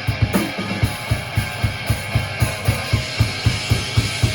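A rock band playing an instrumental passage in rehearsal: a drum kit with an even kick-drum beat of about two strong hits a second, under guitar.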